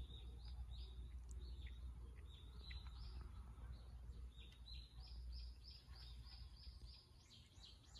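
Small birds chirping: scattered high chirps, then a quick run of repeated notes, about three a second, in the second half. A low steady rumble lies underneath.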